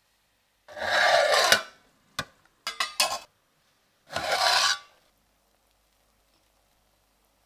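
An aluminium cooking pot and its lid being handled as the pot is closed for dum cooking. Two short rasping scrapes about a second long are separated by a quick run of sharp clicks.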